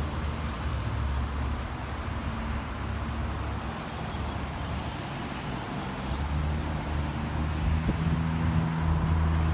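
A steady low engine-like hum, swelling over the last few seconds.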